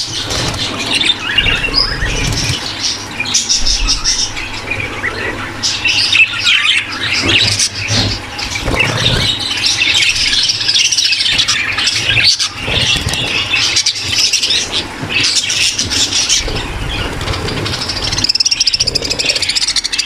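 A breeding-room flock of budgerigars chattering, warbling and squawking all at once in a dense, continuous twitter: the courtship calls of budgies in breeding condition.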